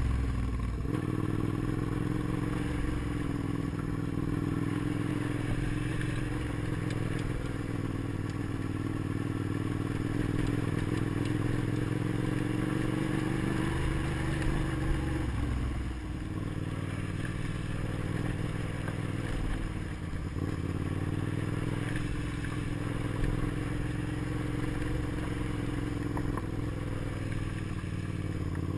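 Motorcycle engine running under way as the bike is ridden, its note steady but dipping about halfway through and again a few seconds later as the throttle is eased.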